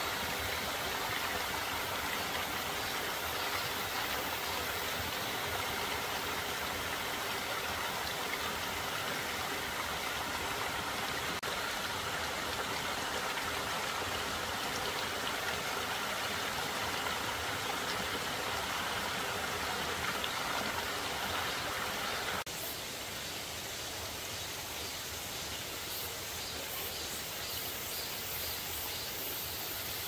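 Steady rush of a small stream's running water, dropping abruptly a little in level about three quarters of the way through.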